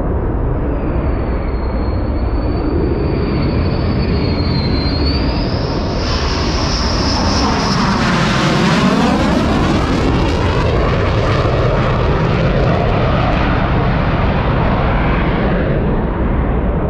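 Fighter jet engine passing by: a continuous roar with a high whine that climbs slightly, sweeping in pitch as the jet passes closest about eight to nine seconds in, then easing off.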